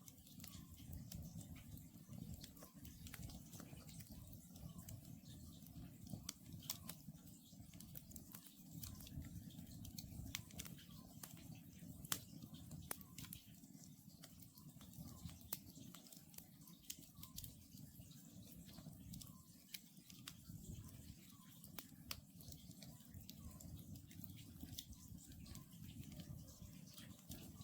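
Wood campfire crackling, with frequent irregular sharp pops and snaps over a low steady rumble of the burning logs. Faint, short, repeated calls of a distant Oriental scops owl.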